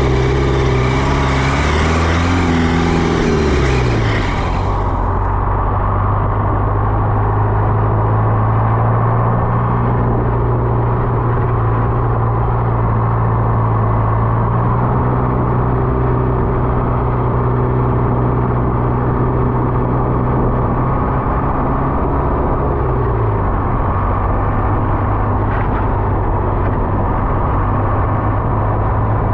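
A road vehicle's engine running steadily while driving. Its pitch rises and then drops about three to four seconds in, and drops again about 23 seconds in, as when shifting or easing off the throttle.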